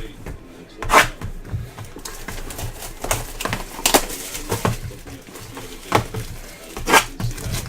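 Trading cards and packs handled on a table: a series of sharp clicks and taps, about one a second.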